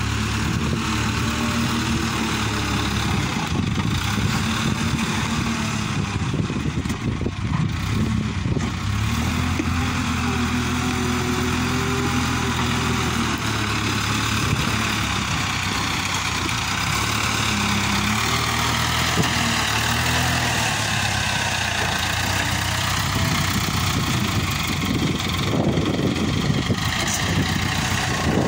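JCB backhoe loader's diesel engine running, its engine note rising and falling a few times as the machine works.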